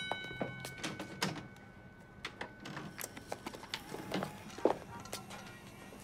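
Faint scattered clicks and taps of a DVD case and player being handled in a quiet room, one knock a little louder near the end.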